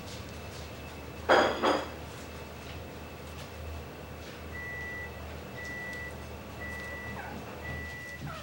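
A short sharp two-part sound a little over a second in, then four identical high electronic beeps, each about half a second long and about a second apart.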